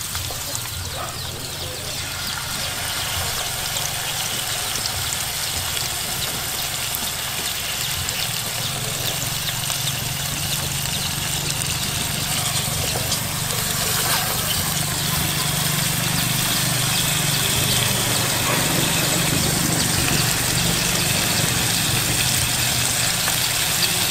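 A steady, low engine-like drone under an even hiss, slowly getting louder.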